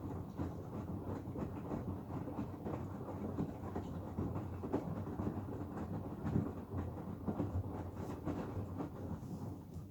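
Hoover Axi 9 kg front-loading washing machine's drum tumbling a wet load: a steady rumble with irregular knocks and splashes as the laundry drops. The drum stops turning right at the end.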